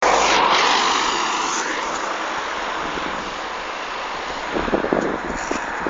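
A road vehicle passing close by, its rushing noise sweeping and fading over the first couple of seconds into steady road noise. There are a few low bumps about four and a half seconds in.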